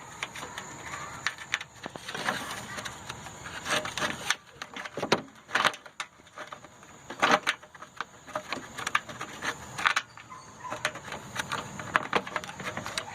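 Irregular clicks, knocks and light scrapes of hands working bolts into the plastic clips of a 2005 Toyota Sienna's radiator fan shroud.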